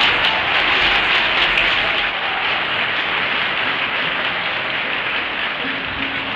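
Audience applause in a concert hall, dense clapping that slowly dies down.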